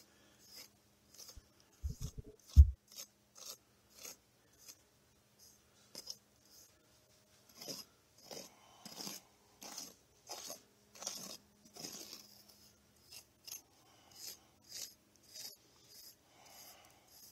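X-Acto knife blade drawn through wet Quikrete sand topping mix, carving strata lines: a long run of short scraping strokes, about two a second. A few knocks come about two seconds in and are the loudest sounds.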